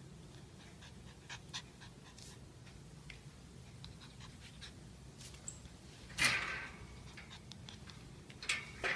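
Small fluffy puppy panting close by, with a few faint ticks and one louder short burst of noise about six seconds in.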